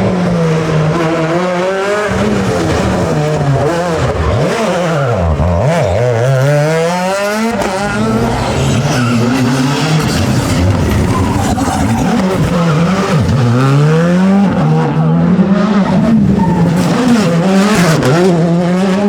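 Rally car engine revving hard, its pitch rising and falling over and over through gear changes and lifts. It drops low twice, about five and thirteen seconds in, before climbing again.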